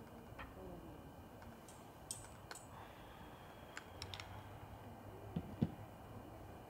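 Scattered light clicks and taps of cups and a glass being handled and set down on a wooden camp table, with two sharper knocks about five and a half seconds in.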